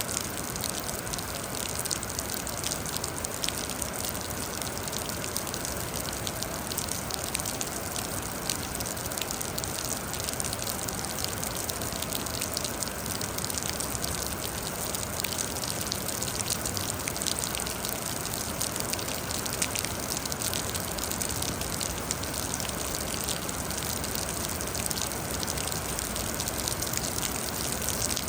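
Steady rain falling: a dense, even hiss of water with countless small, sharp drop ticks scattered through it.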